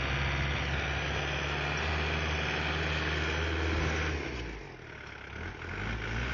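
Engine of a snow-moving machine running at a steady speed. It falls quieter about four seconds in and comes back up a second and a half later.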